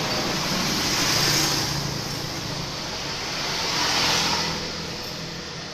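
Honda Vario 125 scooter's single-cylinder engine running, revved up twice so that it swells and eases off, once about a second in and again about four seconds in.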